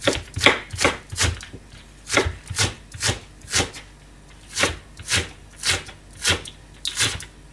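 Kitchen knife chopping Japanese long green onion (negi) on a cutting board. The single sharp strokes come about two a second, with a pause of about a second near the middle.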